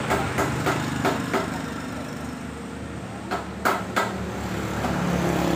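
Rapid, evenly spaced tapping at about three strikes a second, which stops about a second and a half in; three more taps follow around three and a half to four seconds in.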